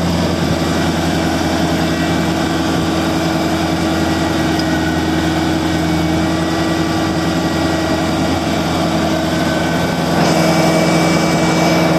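New Holland TC45DA compact tractor's diesel engine running steadily, getting louder about ten seconds in.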